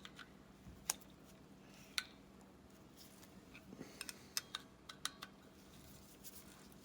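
Small metal carburetor parts and hand tools clicking and tapping as the choke assembly is worked loose: single sharp clicks about one and two seconds in, then a quick run of clicks around four to five seconds in.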